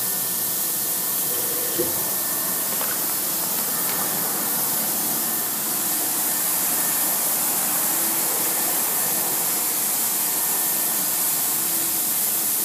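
Steady hiss from a desktop CNC milling machine with servo motors, with a faint high whine running through it. A small click about two seconds in.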